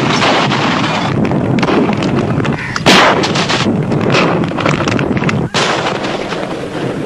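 Artillery fire: towed howitzers firing and shells bursting in a continuous din of blasts, with the loudest blast about three seconds in.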